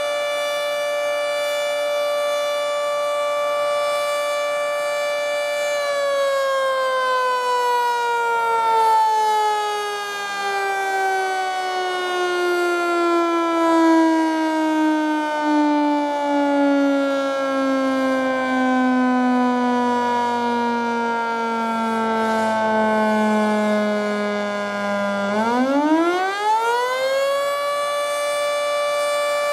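Federal Signal 2T22 three-phase dual-tone outdoor warning siren, its top intake blocked, sounding the fire signal. It holds a steady tone, winds slowly down in pitch for about twenty seconds, then winds quickly back up near the end and holds steady again.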